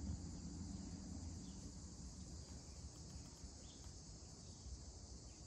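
Steady, high-pitched chorus of insects such as crickets, with a faint low rumble underneath.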